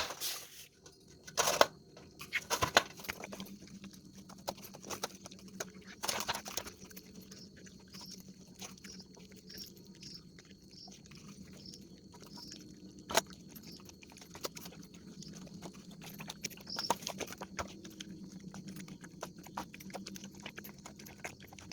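Dog chewing and biting into a melon: wet, crunching bites, the loudest ones in the first several seconds, then steady smaller chewing clicks.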